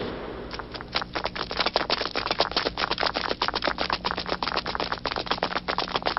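Footsteps of many people running: a dense, rapid, irregular patter of steps that begins about half a second in.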